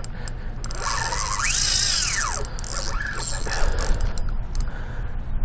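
Spinning reel's drag buzzing as a big jack crevalle runs and pulls line off, rising and falling in pitch in two surges, then a quieter steady reel noise.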